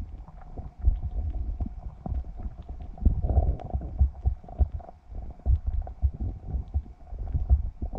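Muffled, irregular low rumbling of moving water with scattered short knocks, as picked up by a camera underwater.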